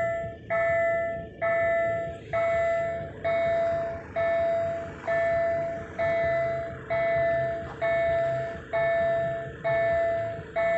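Railway level crossing warning signal ringing: a repeated electronic bell tone, about one ring a second, sounding while the barriers are down, the sign that a train is approaching.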